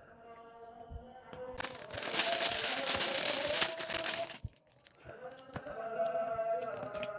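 Background music with steady sustained tones. About one and a half seconds in, a loud burst of hiss-like noise starts, lasts nearly three seconds and cuts off suddenly.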